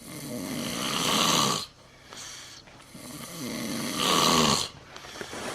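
A person snoring: two long snores, each growing louder and then cutting off abruptly, about three seconds apart, with a fainter breath between them.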